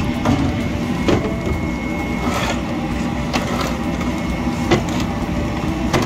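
A quarter-inch wooden sheet knocking and bumping several times as it is handled and laid on the bed of a CO2 laser cutter, over a steady machine hum.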